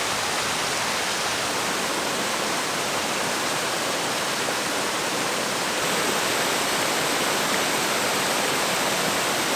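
Steady rush of a waterfall, an even, unbroken roar of falling water that grows slightly louder about six seconds in.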